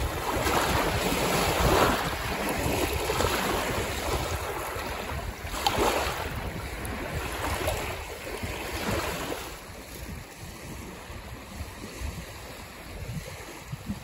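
Small wind-driven waves breaking and washing in at the river's edge in several surges, with wind buffeting the microphone. The wash grows quieter after about nine seconds.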